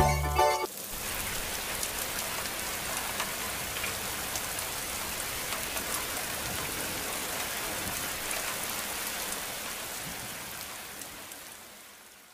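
Steady rain falling, an even hiss with scattered drop ticks, fading out over the last couple of seconds. A short bit of music ends just under a second in.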